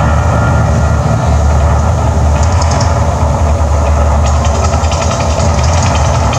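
Deep continuous rumble of the Mirage volcano show. A crackling hiss joins briefly about two and a half seconds in, then again from a little past four seconds as the lit water plumes shoot up.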